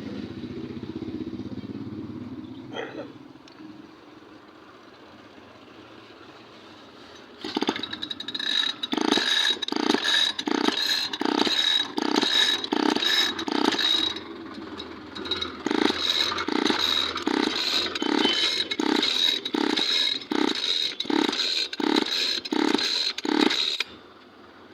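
Metal being struck repeatedly with a hammer, about two blows a second, each with a bright metallic ring, in two runs separated by a short pause.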